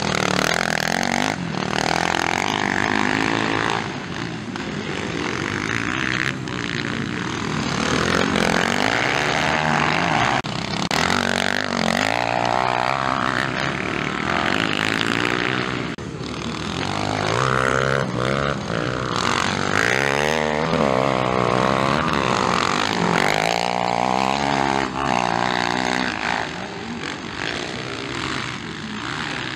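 Motocross dirt bike engines revving hard, the pitch climbing and falling again and again as the bikes accelerate and back off over the track. At times more than one bike is heard at once. The sound eases briefly about four seconds in and again around sixteen seconds.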